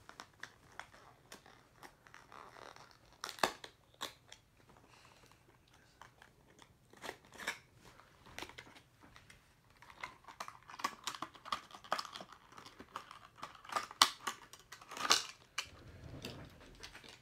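Cardboard box and plastic packaging of a diecast car being torn and pried open by hand: irregular sharp clicks, crackles and crinkling, with the loudest snaps near the end.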